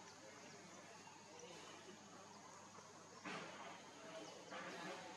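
Faint outdoor ambience with a steady, high insect buzz, and two brief soft rustles, about three seconds in and again about a second and a half later.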